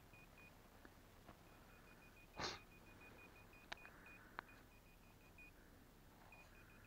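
Metal detector beeping faintly in a quick steady series of short high beeps that pauses briefly twice, with a few faint clicks of digging and one brief louder noise about two and a half seconds in.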